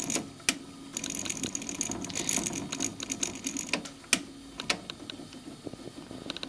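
BSR Accu-Glide programmable turntable running its play cycle: the tonearm mechanism whirring and ratcheting through its gears, with sharp clicks near the start and again around four seconds in.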